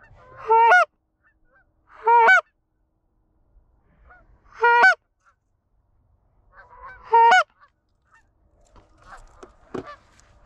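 Four loud Canada goose honks, spaced about two seconds apart, each a short note that cracks upward in pitch at its end.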